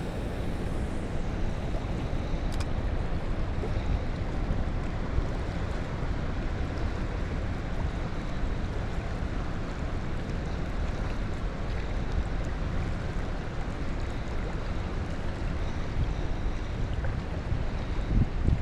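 Steady wind rumbling on the microphone, over the even rush of flowing river water.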